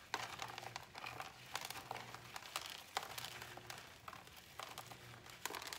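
Gloved hands loosening a plant's root ball: dry potting soil with perlite and pumice crumbling and scattering onto the floor of a plastic tote, in irregular small crackles and rustles.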